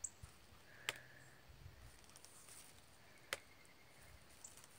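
Near silence, broken by two short faint clicks, one about a second in and one about three seconds in.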